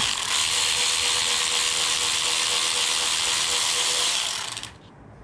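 Cordless ratchet motor running with a steady whir, then winding down and stopping about four and a half seconds in.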